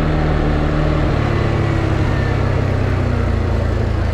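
CFMoto ATV engine running steadily, its pitch easing slightly lower about two seconds in as it slows.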